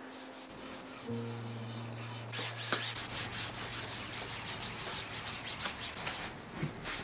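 A cloth rubbing over a waxed wood-and-leather desk panel: finishing wax being worked in and buffed off by hand. It turns to brisk, rapid buffing strokes a couple of seconds in.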